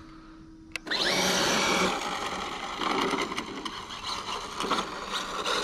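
Front-wheel-drive RC drag car with a brushless motor on a Hobbywing 10BL120 ESC doing a rolling burnout with its rear axle locked: after a faint hum and a click, the motor's whine rises sharply about a second in and holds as the front tyres spin on the asphalt and the car pulls away.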